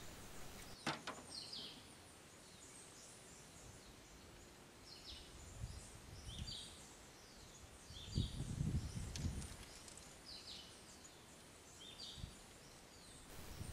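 A bird chirping over quiet outdoor background noise: short calls that slide downward, repeated every second or two. A low rumble comes in about eight seconds in and lasts about a second and a half.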